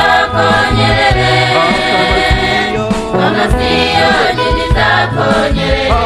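Music: a song with choir voices singing over a steady beat.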